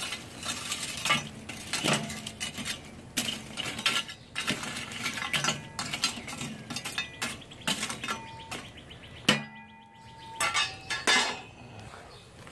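Burning charcoal being raked and spread across the bottom of a steel charcoal kettle grill with a metal crawfish paddle: irregular clinks, knocks and scrapes of coals shifting and of metal on the kettle bowl.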